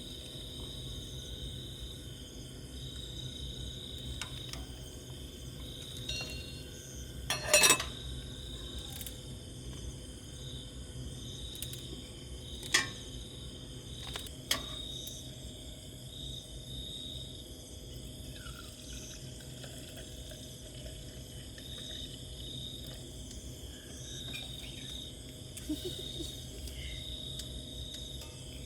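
Steady high-pitched insect chorus, crickets trilling, over a low steady hum, with a few sharp clicks and knocks, the loudest about seven and a half seconds in.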